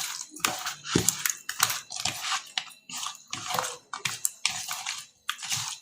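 Hands mixing raw fish pieces with ginger-garlic paste, rubbing the paste in: irregular wet squishing with small clicks, several a second.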